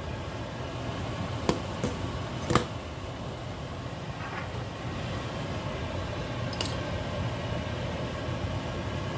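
A pot of water at a full boil gives a steady bubbling hiss, with a few sharp metal clinks, the loudest about two and a half seconds in, as rusted black iron pipe pieces go into the water with metal tongs.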